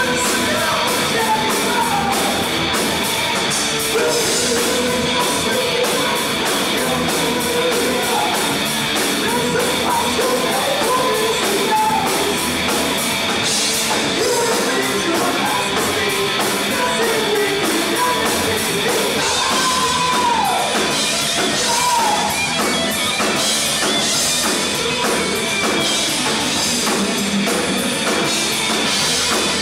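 A rock band playing live: electric guitar, bass guitar and drum kit, with a male lead singer singing over most of it.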